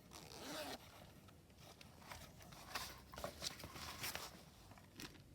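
Faint rustling and light clicks of small stationery items, a roll of masking tape among them, being handled and slipped into a fabric watercolour pouch, in short scattered bursts.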